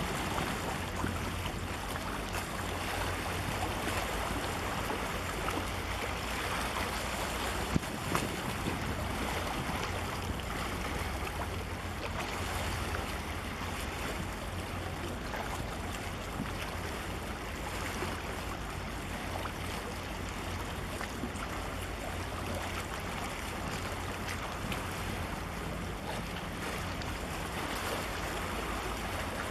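Wind buffeting the microphone over choppy sea water, a steady rushing noise with a deep rumble underneath.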